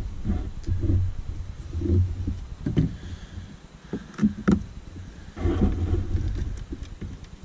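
Close handling noise from hands and a sleeve working among engine-bay wiring: irregular low rubbing rumbles broken by a few sharp clicks of wire and plastic connector.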